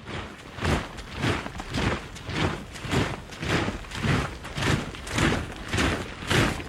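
A body of soldiers marching in step, their feet striking the ground together in a steady rhythm of a little under two steps a second.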